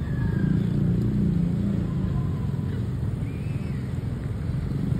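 Road traffic: car and motorcycle engines running in a steady low rumble.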